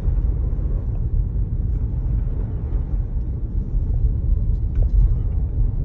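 Steady low rumble inside the cabin of a 2019 Jeep Grand Cherokee driving through deep snow on stock all-season tyres, with a few faint ticks.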